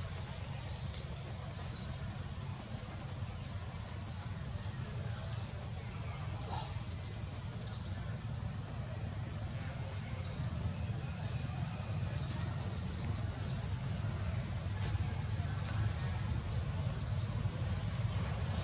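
Outdoor ambience: many short high-pitched chirps, irregular, about one or two a second, over a steady low rumble.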